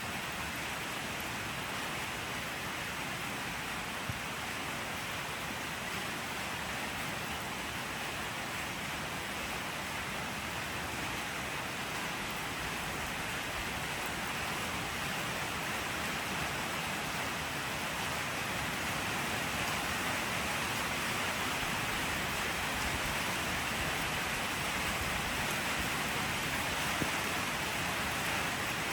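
Steady rain falling, an even hiss that grows slightly louder over the second half.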